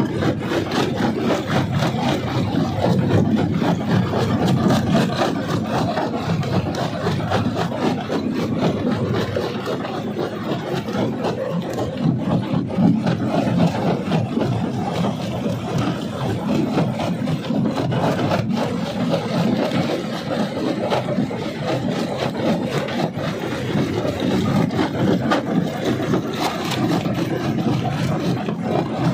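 Rock crusher running and crushing stone: a steady grinding crunch with a constant patter of small knocks over the machine's running.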